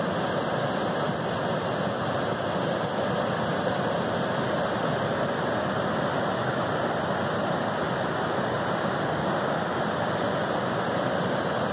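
Steady rushing roar of a river in flood, muddy floodwater running fast and high.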